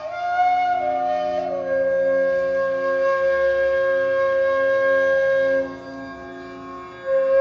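Flute playing slow, sustained notes over a steady low drone. It steps down into one long held note, goes quiet for about a second and a half, and a new note comes in near the end.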